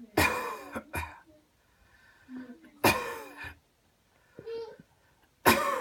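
A person coughing forcefully on purpose: three harsh coughs about two and a half seconds apart, each followed by a shorter catch or second cough.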